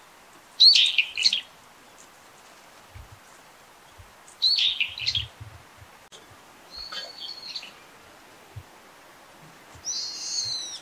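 Brown-eared bulbul calling: four high call phrases, each about a second long and a few seconds apart, the first two the loudest.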